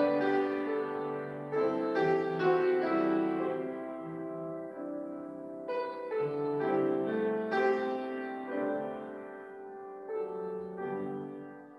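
Slow piano music, chords struck and left to ring, dying away near the end.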